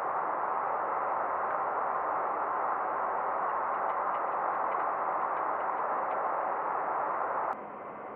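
Boeing 737-800 flight-deck noise in flight: a steady rushing hiss of air. Near the end it drops suddenly to a quieter, duller hiss.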